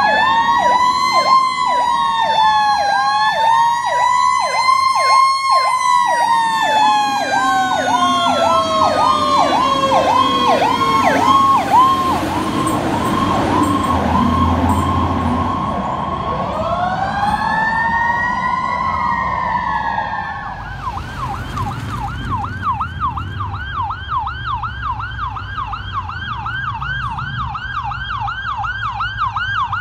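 Fire engine sirens: an electronic yelp warbling a few times a second together with a slow wail that rises and falls, then winds down. A wail rises and falls once more, and then a fast yelp siren carries on steadily.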